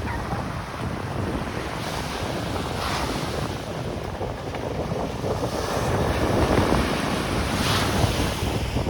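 Wind buffeting the microphone over the steady wash of surf on a beach, swelling twice, about three seconds in and again near the end.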